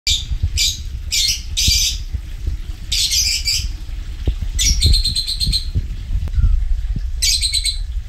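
Caged cockatiels giving harsh, screechy squawks in about seven short bursts, some close together, over a steady low rumble.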